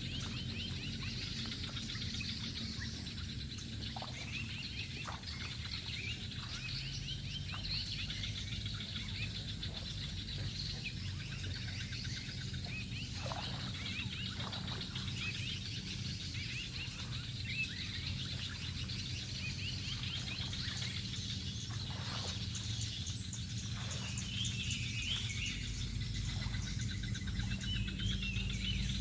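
Outdoor ambience: birds chirping over and over with quick repeated calls, a steady high insect whine, and a steady low hum underneath, with now and then a soft knock.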